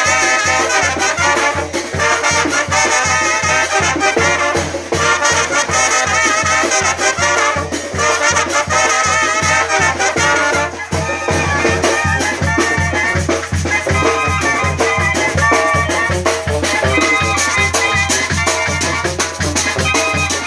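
Mexican banda brass band playing a son: trumpets and other brass over a steady quick bass and drum beat, with rattling percussion.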